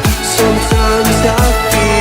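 Instrumental passage of a song with a steady beat: deep bass hits that drop in pitch about three times a second under a held melody line.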